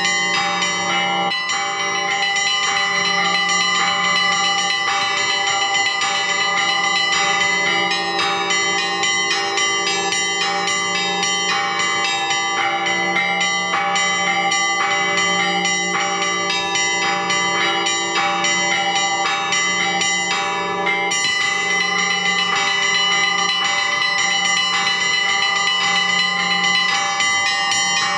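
Orthodox church bells rung by a bell-ringer: many bells of different pitches struck in a quick, continuous pattern over the hum of a deep bell.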